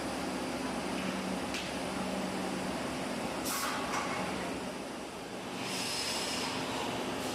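Factory machinery running steadily with a low hum. There are a few short clicks, and a burst of hiss near the end.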